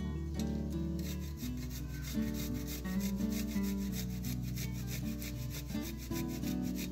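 Garlic clove grated on a flat stainless-steel grater, a quick run of repeated rasping strokes that starts about a second in.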